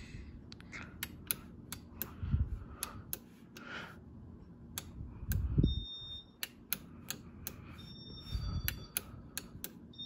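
Wall switches clicking as a hand repeatedly presses the buttons of a three-button ceiling-fan wall control and flicks toggle switches, a sharp click about twice a second. A few dull thumps come in between, and from about halfway faint short high-pitched beeps.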